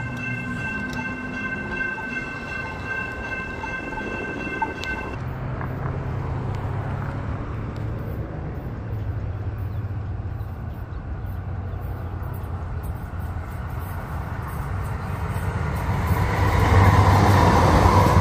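Electronic railroad crossing bell ringing steadily for about five seconds, then a steady low hum; near the end a light rail train passes on the track above, growing loud.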